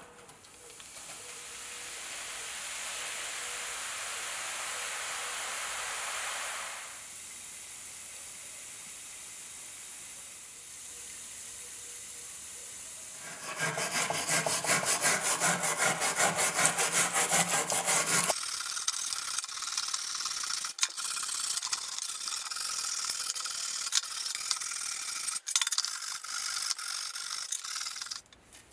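White powder poured hissing into a stainless tray of liquid over a rusty steel bayonet scabbard, followed by a fainter fizzing hiss. About halfway in, a stiff-bristled brush scrubs the corroded scabbard in the liquid, first in fast, even strokes and then in scratchier, less regular scrubbing with a few clicks.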